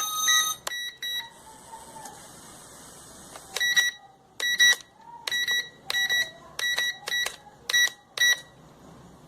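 Short, high-pitched electronic beeps from a toy quadcopter's electronics or remote control. A longer beep and a quick group of three come first, then after a pause a run of about nine short beeps, roughly two a second.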